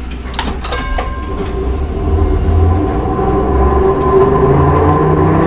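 Hankai Tramway Mo 161-series tram running, with the steady hum of its nose-suspended traction motors over a low rumble. There are a few sharp clicks about a second in, and the sound grows louder from about two seconds in.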